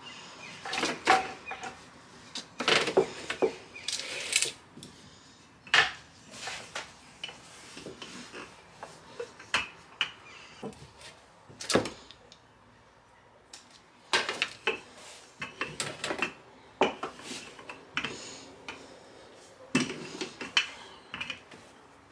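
Wooden rolling pin rolling out pastry dough on a wooden board, with irregular knocks and rubbing as the pin is worked and handled. A metal tart pan lined with baking paper is picked up and moved about halfway through.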